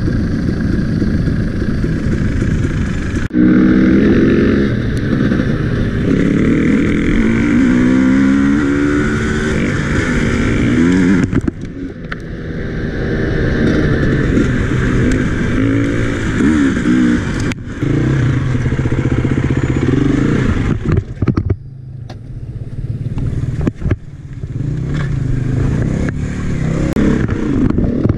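Off-road enduro dirt bike engine revving up and down as it is ridden over rough dirt and rocky trails. The sound changes abruptly a few times.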